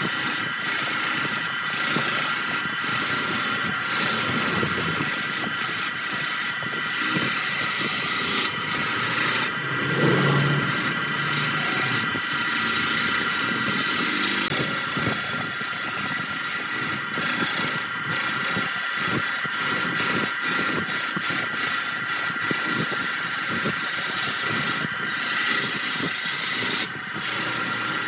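Hand-held turning tool cutting a large wooden blank spinning on a wood lathe: a continuous rough scraping hiss with many brief breaks as the tool lifts off the wood, over the steady whine of the lathe's electric motor.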